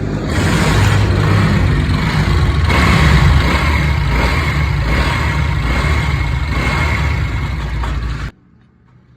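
A vehicle engine running loudly and steadily, stopping suddenly about eight seconds in.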